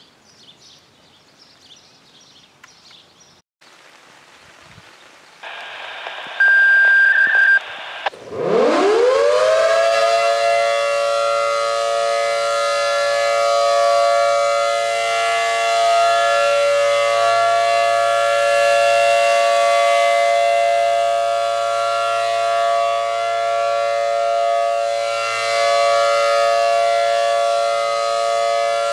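ACA Allertor 125 10/12-port rotating siren winding up about eight seconds in, rising quickly to a loud steady chord for a full alert, its level swelling and easing slightly as the head turns. Just before it starts, a short steady beep over a hiss, the activation tones.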